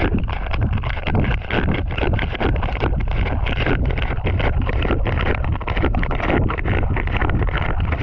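Underwater water noise picked up by a submerged GoPro just below the sea surface: a steady muffled rushing with dense, irregular crackling clicks throughout.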